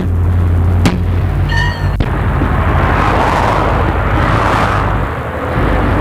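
Hammer blows on a heavy lorry trailer's steel wheel rim during a roadside tyre change: two sharp strikes about a second apart at the start. Then the rush of a vehicle passing on the road swells and fades.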